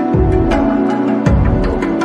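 Background music: an instrumental passage with sustained chords, a bass line that changes note about once a second, and a regular percussive beat.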